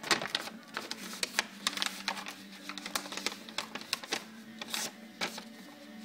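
Irregular clicks and rattles of small objects and packaging being handled, over a faint steady low hum.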